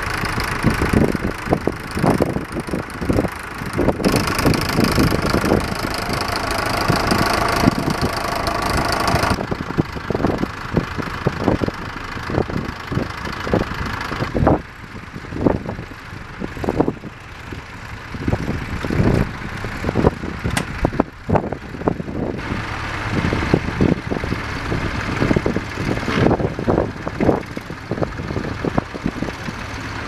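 Vintage farm tractor engines running as they pull ploughs, one working close by, with irregular low thumps throughout. The sound is fuller and brighter from about four to nine seconds in and drops back briefly around fifteen seconds.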